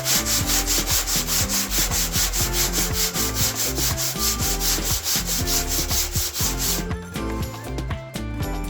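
Sanding block rubbed back and forth over a primed car body panel in fast, even strokes, about six a second. The strokes grow sparser and change character about seven seconds in.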